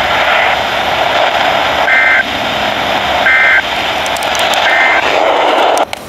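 Weather radio's speaker hissing with static, broken by three short warbling two-tone data bursts about a second and a half apart: the SAME digital end-of-message code that closes an EAS Required Weekly Test. The sound cuts off suddenly just before the end.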